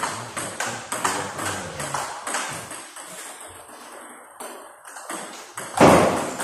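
A table tennis ball clicking off bats and table in a rally, about two hits a second at first, then sparser and fainter hits. Near the end there is one much louder burst of sound.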